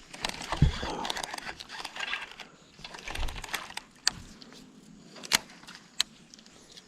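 Rattling, rustling handling noise of fishing gear for about four seconds, followed by three separate sharp clicks.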